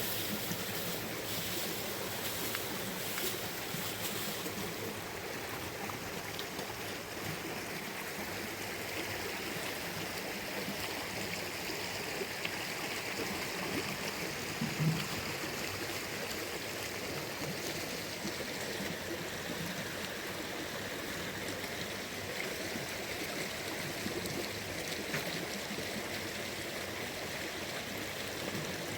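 Steady rush of running water: an even wash of noise that never stops.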